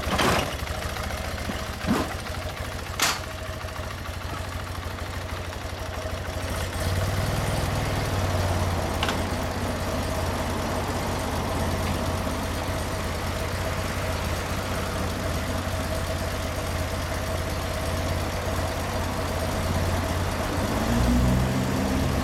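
BMW R100CS air-cooled flat-twin boxer engine idling steadily, with a few sharp clunks in the first three seconds. About seven seconds in the engine note grows fuller and lower, and near the end the revs rise briefly.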